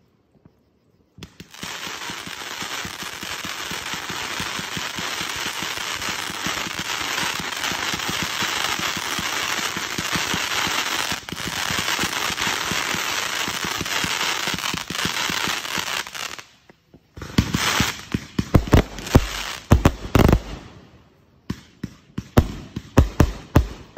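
Fireworks going off: after a brief pause comes a dense, continuous crackling lasting about fifteen seconds, then a quick run of separate loud bangs from about seventeen seconds in.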